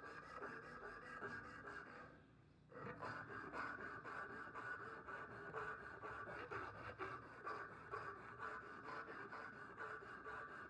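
Strip of sandpaper pulled quickly back and forth around a wooden knife handle, shoeshine style: a fast, even rubbing of abrasive on wood, several strokes a second. It breaks off for under a second about two seconds in, then resumes.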